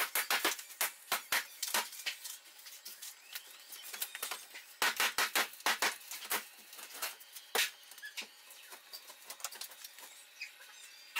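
Broom sweeping crumbled drywall debris across a concrete floor in quick scraping strokes. There is a fast run of strokes at the start and another about five seconds in, then a few single strokes and lighter scattered sounds.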